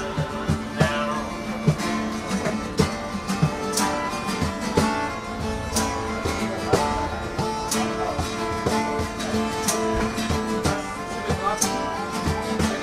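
Music led by a strummed acoustic guitar, with regular plucked strokes.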